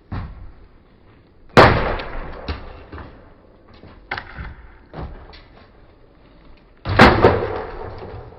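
Sledgehammer blows on a wooden shed: two heavy strikes about five seconds apart, each followed by a second or so of rattling timber, with a few lighter knocks in between.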